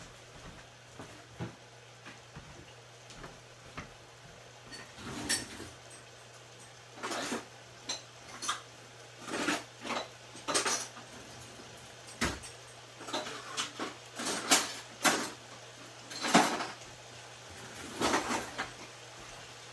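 Kitchen dishes and utensils clinking and clattering in a string of short knocks, some ringing briefly, starting a few seconds in. A steady low hum runs underneath.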